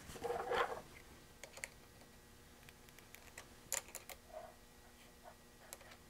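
Light scattered clicks and taps of metal coaxial adapters and cable being handled and fitted together, with a short rustle in the first second.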